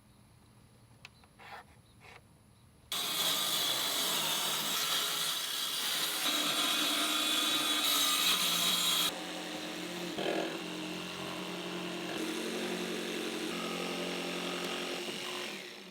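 Electric power saw cutting wood. It starts abruptly about three seconds in after a few faint clicks, and drops to a lower, steadier running sound about nine seconds in.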